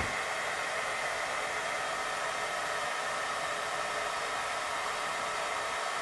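Handheld hairdryer running steadily on one setting: an even rush of blown air with a faint high whine.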